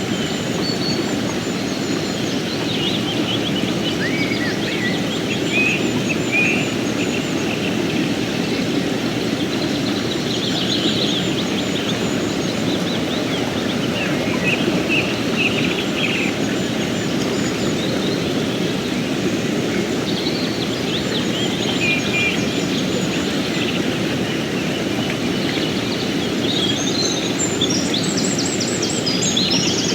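Mountain stream running steadily over rocks, with small birds chirping on and off above it and a busier spell of chirps near the end.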